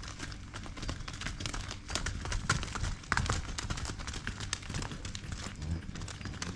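Dairy cows' hooves walking and trotting on a muddy farm lane: a run of irregular clops and clicks, loudest around the middle as a cow trots close by.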